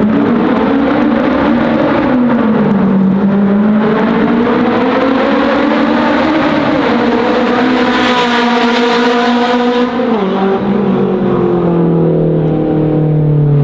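Honda S2000's F20 four-cylinder engine through a JS Racing 70RR titanium exhaust, pulling hard with its pitch climbing steadily for several seconds. About ten seconds in it drops off suddenly, and the pitch then glides down as the car slows.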